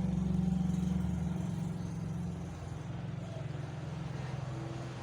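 A steady low mechanical hum, easing a little after about two seconds.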